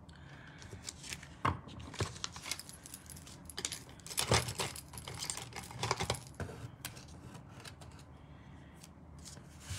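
Scattered light clicks, taps and rustles of card stock and a pair of scissors being handled and set down on a craft mat, the busiest stretch a little before the middle.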